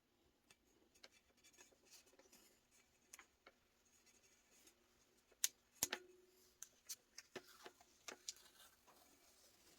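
Scattered light clicks and taps, with two sharper clicks close together about halfway through.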